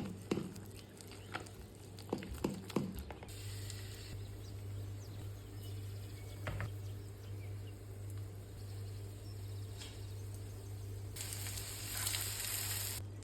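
Oladyi batter frying in hot oil in a pan, with a soft sizzle that swells near the end. A few light knocks of kitchen utensils come in the first few seconds.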